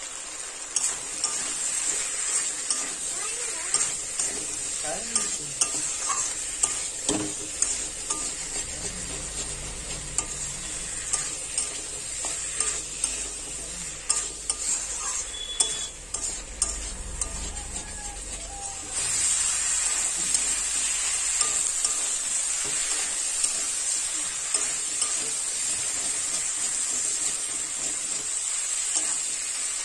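Taro root, potatoes and prawns sizzling in oil and spice paste in a metal kadai while a spatula stirs and scrapes them, with frequent clicks of the spatula against the pan. This is the stage where the vegetables are fried down in the masala. The sizzle is louder over the last third.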